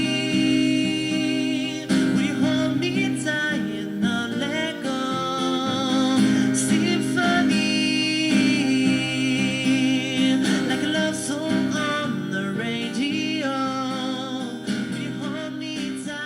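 Music: a voice singing a melody with wavering, vibrato-like notes over guitar accompaniment.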